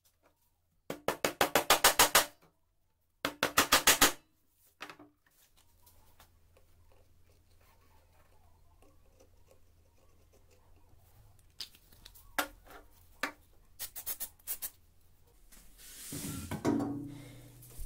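Two quick runs of sharp knocks, each growing louder, then a short third run; later a few light clicks and a brief scraping rumble near the end.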